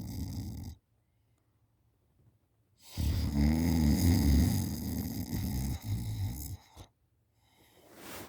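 A person snoring heavily in deep sleep. One snore ends under a second in, then after a silent pause of about two seconds comes a long, loud, rattling snore of about three and a half seconds, then a short burst and fainter breathing near the end.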